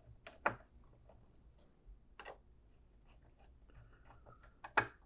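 Faint handling clicks and taps as fingers work wires into a screw terminal block on a circuit board. Two sharper clicks stand out, one about half a second in and a louder one near the end.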